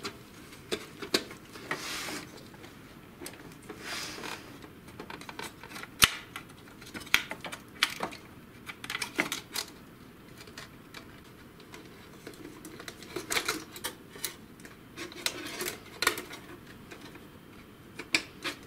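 Irregular plastic clicks, taps and rustling from hands working on the chassis of a disassembled HP Smart Tank 513 printer, pulling a sensor wire free of its routing. The sharpest click comes about six seconds in.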